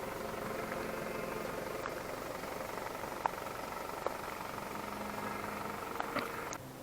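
Vehicle running steadily, a constant engine and road hum with a few sharp clicks, cutting off suddenly near the end.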